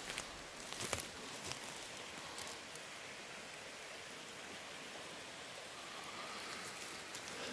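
Steady rushing hiss of forest background noise, with a few crunching footsteps on the forest floor in the first couple of seconds.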